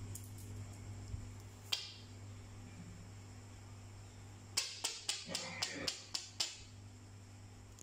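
Sharp taps of a rubber toy knocked against a tile floor: one tap a couple of seconds in, then a quick run of about seven taps near the end, with a faint squeak among them. A low steady hum runs underneath.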